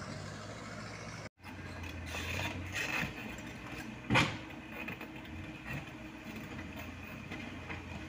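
Komatsu mini excavator's diesel engine running steadily as it travels on its tracks over a rough dirt road, with the engines of the dump trucks following it. The sound cuts out for a moment just over a second in, and a single sharp clank stands out about four seconds in.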